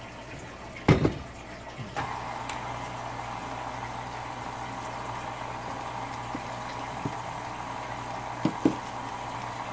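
A loud clunk about a second in as the KitchenAid Artisan stand mixer's tilt head is lowered into place. About a second later the mixer's motor starts and runs at a steady whine, stirring bread flour into the wet ingredients, with a couple of small knocks near the end.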